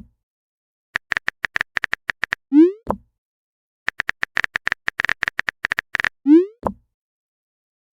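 Phone-keyboard typing clicks in a quick run of taps, each run ending in a short rising 'bloop' of a chat message being sent. This happens twice.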